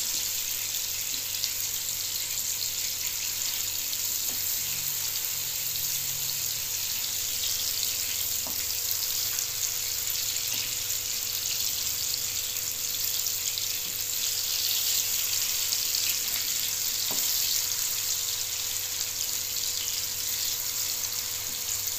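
Banana halves sizzling as they fry in hot margarine in a frying pan: a steady, even hiss.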